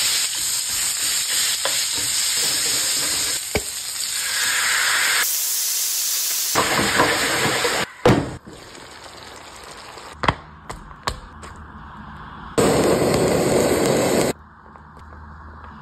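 Meatballs sizzling in hot oil in a frying pan, a steady hiss that breaks off briefly twice. About halfway through comes a single sharp knock as the pan's glass lid is handled. After a quieter stretch with a few small clicks, a loud hiss returns for under two seconds near the end.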